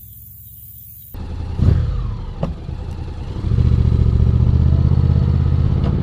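Honda X-ADV 750's parallel-twin engine, which comes in abruptly about a second in. It blips once, then runs steadily and loudly under throttle from about halfway, with a couple of sharp clicks.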